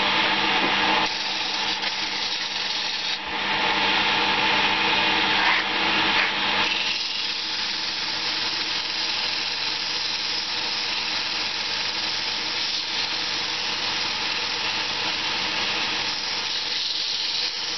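Small wood lathe running with sandpaper pressed against a spinning Banksia seed pod: a steady motor hum under a rasping sanding hiss. The hiss is strongest over the first several seconds, then settles to an even, slightly lighter rasp.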